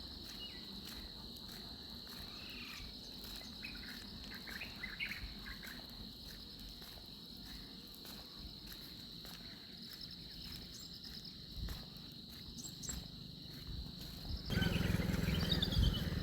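A steady, high-pitched insect chorus with a few short chirps over it. About fourteen and a half seconds in, a louder low rushing noise starts suddenly.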